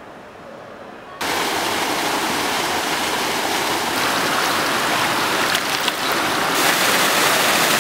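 Rushing water of a flowing hot-spring pool: a loud, steady rush that cuts in suddenly about a second in, after low room tone.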